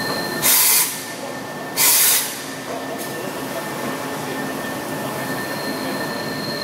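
Mori Seiki MV45 vertical machining centre running with a steady high whine, broken near the start by two short, loud hisses about a second and a half apart.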